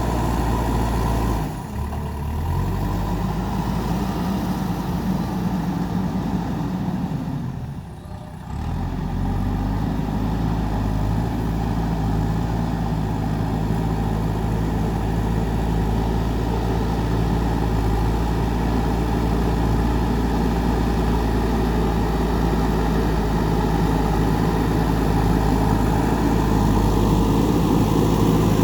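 JCB 3DX backhoe loader's diesel engine running steadily while it works, dipping briefly twice, once near the start and again about a third of the way in, before settling back to a steady drone.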